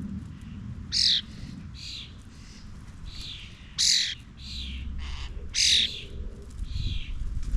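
Garden birds giving harsh, rasping squawks: three loud calls about a second apart in time, with softer squawks repeating between them.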